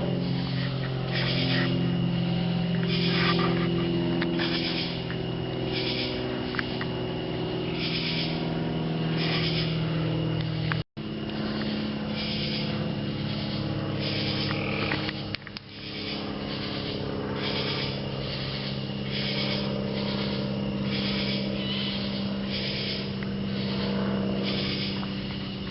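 A steady low mechanical hum with even tones, over a short high-pitched chirp repeating about once a second; the audio cuts out for an instant partway through.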